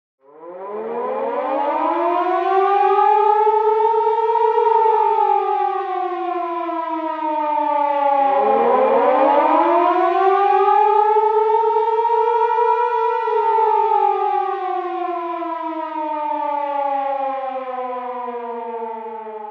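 Civil-defence warning siren wailing, its pitch rising and falling slowly twice over the stretch.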